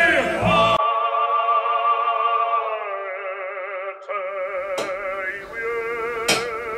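Music: a solo voice singing long, held notes with vibrato in an operatic style. A low bass note under it cuts off just under a second in, and two sharp clicks sound over the singing near the end.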